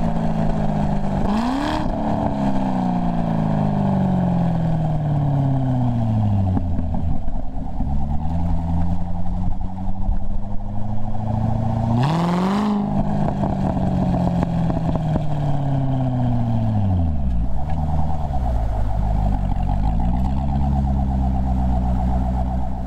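Corvette V8 running through its stock NPP exhaust. The revs jump up sharply about a second and a half in with a short burst of exhaust noise, then sink slowly over several seconds. The same happens again about halfway through, followed by a few small rises and dips in the revs and steadier running at the end.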